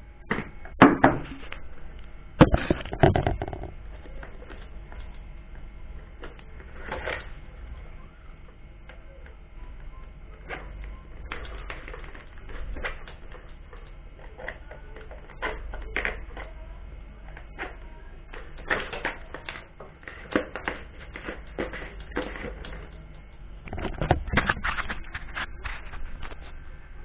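Hard plastic bowls and a plastic spinner drum knocking and clattering as they are handled and fitted together: scattered clicks and clacks, loudest in a cluster in the first few seconds and again near the end.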